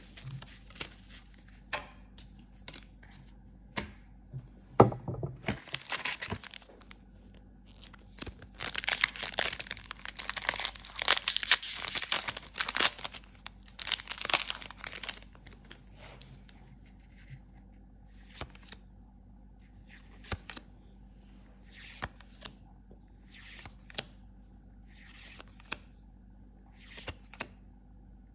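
A foil trading-card booster pack being torn open, with a dense stretch of tearing and crinkling wrapper in the middle, after a single thump about five seconds in. Later come short, scattered clicks and slides as the cards are flipped through one by one.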